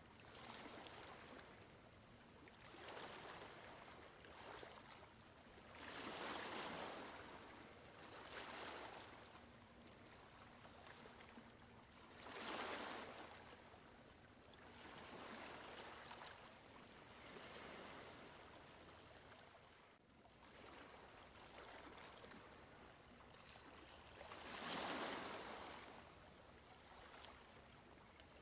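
Faint sound of waves washing in and drawing back, a soft rush that swells and fades every few seconds over a faint steady hum.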